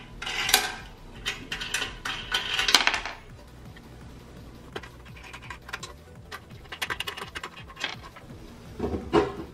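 Small metal clicks and clinks from the wing nuts, bolts and metal plate of a Vevor 5-in-1 heat press as the underneath screws are undone by hand. A dense run of clinks in the first three seconds, then scattered ones.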